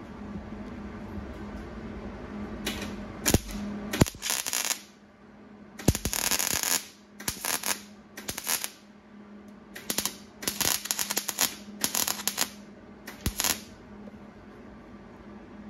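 MIG welder tack-welding the old, thin sheet steel of a car hood on its lowest setting: about ten short crackling bursts, the longest about a second, from about three seconds in to near the end.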